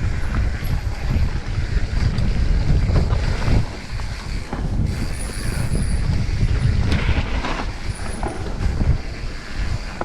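Wind buffeting an action camera's microphone over the rumble and rattle of a mountain bike riding fast down a dirt trail, with a few brief high-pitched squeals in the second half.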